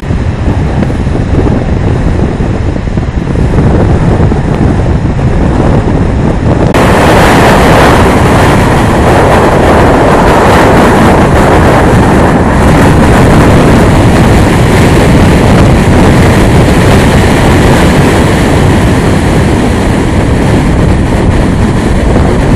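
Strong wind buffeting the microphone, a loud continuous rumbling rush of noise. About seven seconds in it turns louder and hissier.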